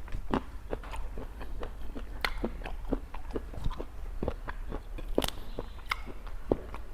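Close-miked eating: crisp bites and crunchy chewing, several irregular sharp crunches a second, over a low steady hum.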